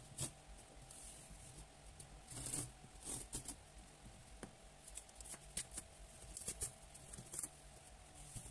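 Faint scattered clicks, rustles and short scrapes of a cardboard box being opened and its contents handled, with a longer rasp about two and a half seconds in.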